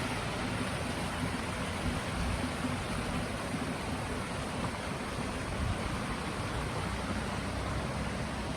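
Steady rushing of water, an even hiss with a low rumble underneath.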